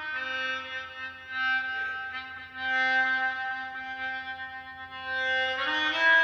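Musical instrument playing long held notes rich in overtones, with a reedy tone. A low note is held for several seconds, then the pitch moves up and gets louder near the end.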